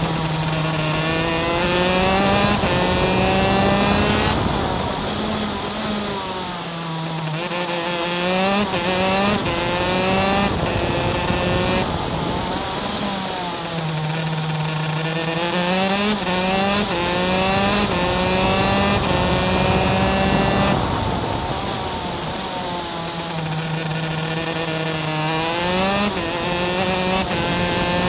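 Superkart's two-stroke racing engine heard onboard, screaming up through the gears with stepped rises in pitch on the straights, then dropping away under braking and downshifts into the corners. This cycle of accelerating and slowing comes round about three times, with wind noise throughout.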